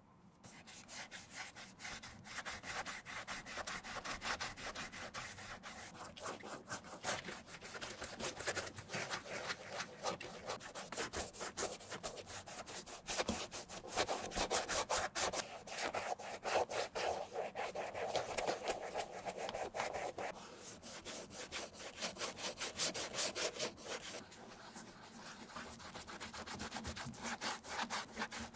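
A deglazer-wetted cotton ball, held in forceps, scrubbed rapidly back and forth over the leather upper of an Air Jordan 1 to strip its old finish: a dense, fast run of rubbing strokes, loudest in the middle.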